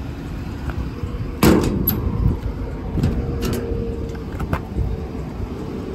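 Metal clunks and latch clicks from the car-hauler bed's toolbox compartment doors being opened and handled. The loudest clunk comes about one and a half seconds in, with a few lighter clicks after it, over a steady low rumble.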